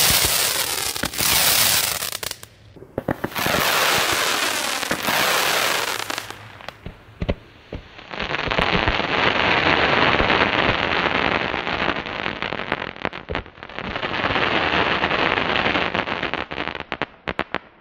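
Weco Elysium firework battery going off in a mass ignition, all its tubes fired together through added fuse: a loud, continuous rushing hiss thick with crackles and pops. It is heard in three long stretches with short breaks between them.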